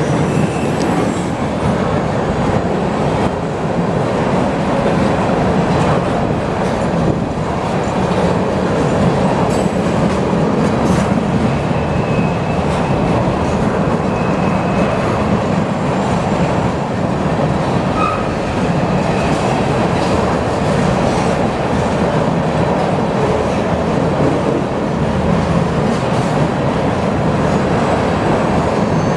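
Freight train of tank cars rolling past close by: a steady loud rumble and clatter of steel wheels on the rails, with faint high-pitched wheel squeals now and then as the train takes the curve.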